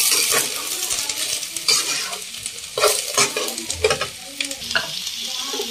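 Chopped onion and green capsicum sizzling in hot oil in a kadhai while a steel spatula stirs them. The spatula scrapes and knocks against the pan several times over a steady sizzle.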